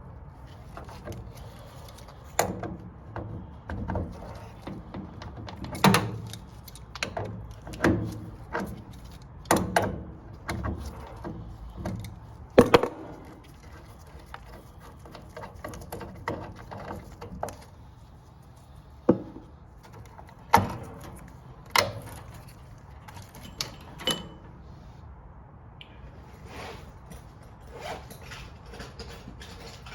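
Irregular knocks, clunks and clicks of tools and metal parts being handled during work on a gas water heater's valve and burner, about a dozen sharp impacts with the loudest, a double knock, about twelve seconds in, and fewer near the end.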